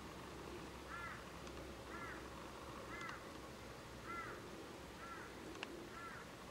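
A bird calling six times, about once a second, each call a short note that rises and falls, over a faint steady hiss. A single sharp tick comes near the end.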